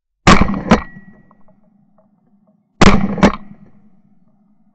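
Gunshots recorded by a gun-mounted ShotKam camera: two sharp reports about half a second apart, each dying away quickly, and the same pair heard again about two and a half seconds later.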